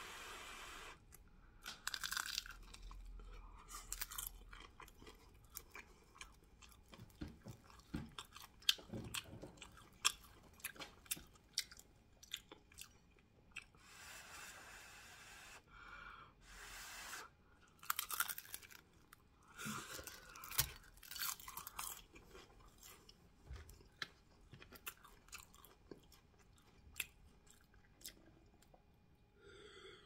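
Crunching bites into a crispy fried spring roll's pastry wrapper and close-miked chewing, in irregular crackling bursts.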